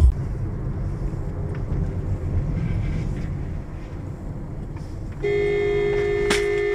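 Road and engine noise inside a moving car. About five seconds in, a car horn sounds one long steady blast, a warning honk at a pickup truck coming toward the car in its lane, with a sharp click partway through.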